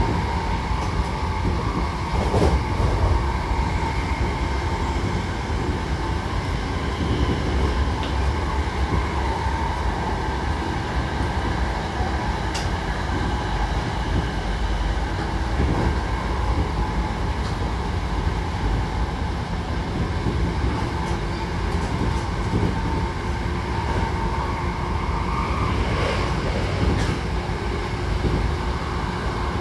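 Hankyu Kobe Line commuter train running between stations, heard from inside the passenger car: a steady rumble of wheels and running gear, with faint steady tones over it and a few sharp knocks.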